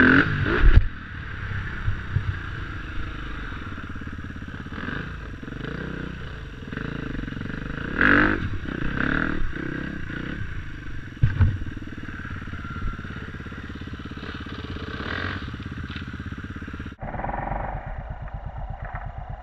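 KTM 250 EXC-F single-cylinder four-stroke dirt bike engine running under way on rough ground, with a few short louder bursts. About two and a half seconds before the end the sound cuts abruptly to a duller, evenly pulsing engine note.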